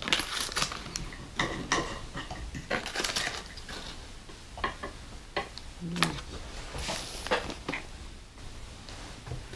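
Irregular clatter of light knocks and clinks from dishes, pots and utensils being handled at a camp kitchen.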